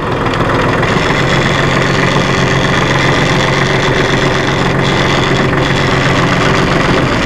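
2005 New Holland TC30 compact tractor's diesel engine running steadily under way in third gear of mid range, its sound building over the first second and then holding even.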